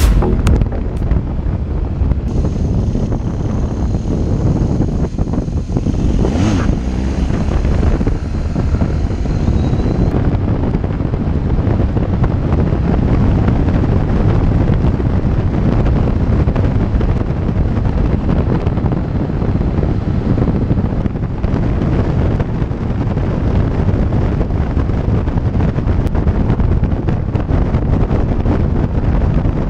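Wind rushing over the microphone together with the steady drone of a BMW R1200GS boxer-twin motorcycle cruising at highway speed.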